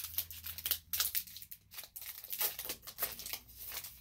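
Foil Pokémon booster pack wrapper being torn open and crinkled by hand: a dense run of sharp, irregular crackles that thins out after about three seconds.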